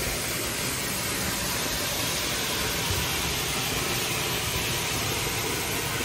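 Man-made geyser erupting: a steady rushing hiss of a high jet of water and falling spray.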